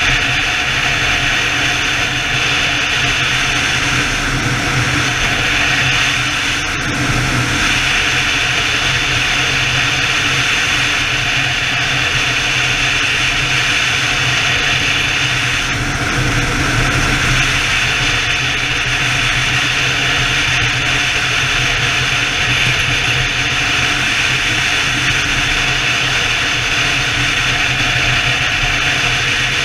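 Steady wind rush and engine drone from a BMW touring motorcycle cruising at highway speed.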